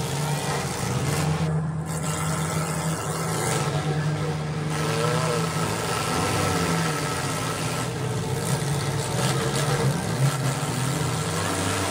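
Several demolition derby cars' engines running and revving together, with a short sharp knock a little after ten seconds in.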